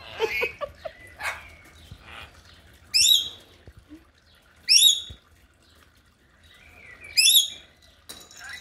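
Lorikeet screeching in a tantrum: three loud, harsh screeches, each under half a second and about two seconds apart.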